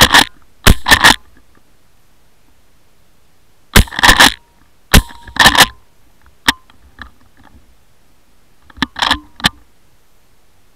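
Dog barking right at the microphone in short, loud clusters, typical of a hunting dog giving tongue on the trail of wild boar: three barks at the start, a burst of about five around the middle and three more near the end.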